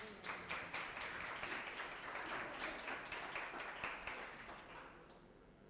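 Audience applauding, with many hands clapping, then dying away near the end.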